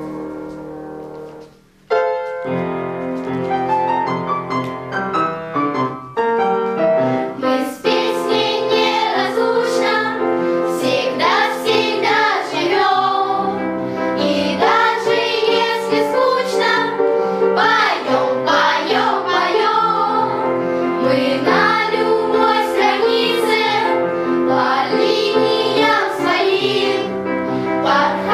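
Music: a held piano-like chord fades out, and after a short gap about two seconds in, new music starts. From about eight seconds in, a choir sings over the instruments.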